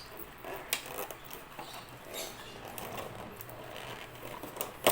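Toy packaging being handled: light rustling and small clicks of plastic and cardboard, with one sharp, loud click near the end.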